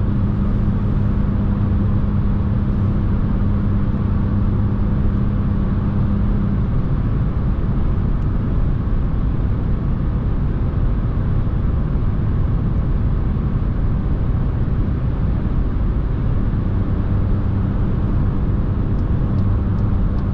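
Inside the cabin of a 2021 Seat Ibiza 1.0 MPI, its three-cylinder petrol engine, tyres and wind make a steady noise while cruising at about 125 km/h. A steady hum in the mix drops away about six seconds in.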